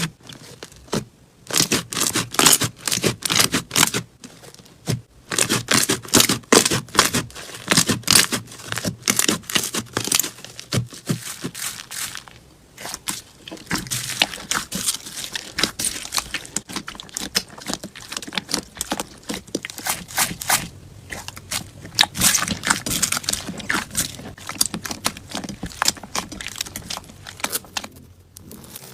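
Slime being squeezed and pressed by hand, giving dense runs of crackles and pops with a few short pauses.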